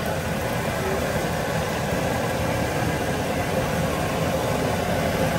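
Steady background noise of a busy street, with vehicle engines running and no horn or voice standing out.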